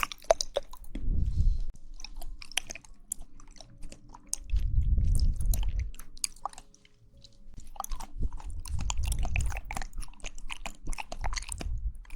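Close-miked mouth sounds of someone chewing jelly: quick wet clicks and smacks throughout, with three deeper muffled, squishy swells.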